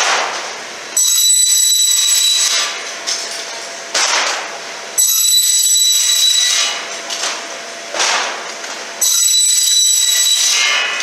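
End trim saw's circular blade cutting aluminum door sill profiles, three cuts about four seconds apart. Each cut starts suddenly with a high-pitched ringing whine and metal-cutting noise that fades over a couple of seconds. A short knock comes between cuts.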